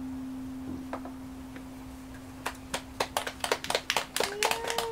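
A single held low note fades slowly away while scattered hand claps start about two and a half seconds in and quicken into applause; a voice joins in near the end.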